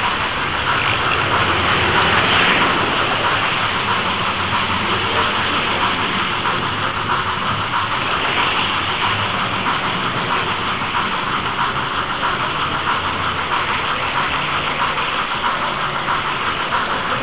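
OO gauge model train running close by on the track: a steady rattle and whirr of wheels and motor, with rapid fine clicking from the wheels over the rails.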